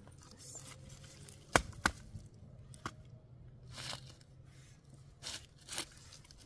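Dry sticks of firewood being handled and stacked: two sharp wooden cracks in quick succession about a second and a half in, then scattered softer knocks and scrapes.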